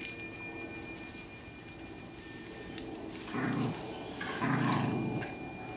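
Two terriers, a Norwich Terrier puppy and a Jack Russell mix, play-fighting, with two short bursts of growling about three and four and a half seconds in.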